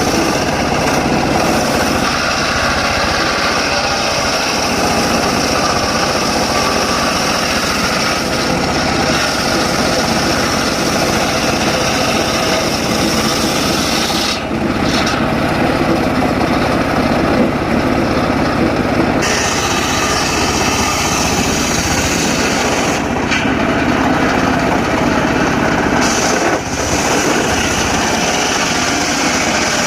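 Large circular saw running and cutting through teak wood, a loud steady machine noise with a sawing hiss that dips briefly about halfway through and shifts a few times after.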